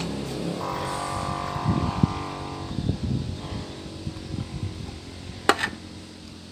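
Small metal clicks and scrapes of hands and tools working the retaining clip off the kickstarter shaft in a Yamaha Xeon's CVT cover, with one sharp click near the end. A vehicle engine runs in the background, its tone louder for a couple of seconds near the start.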